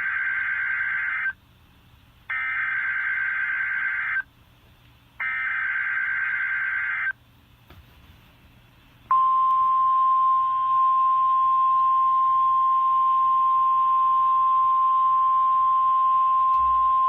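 NOAA Weather Radio emergency alert: the SAME digital header sent three times as bursts of data tones, each about two seconds long, then, about nine seconds in, the single steady 1050 Hz weather radio alert tone. It signals that an alert is being issued, here a tornado watch.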